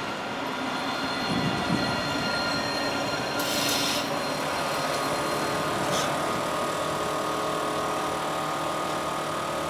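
An Alstom Citadis 302 low-floor tram runs slowly past at close range, giving a steady rolling rumble with several steady whining tones over it. A short hiss comes about three and a half seconds in.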